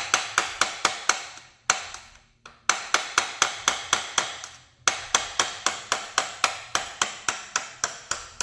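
Hammer striking a punch to drive a pin out of a manual transmission: rapid sharp hits, about four a second, in three runs with short pauses about two and five seconds in.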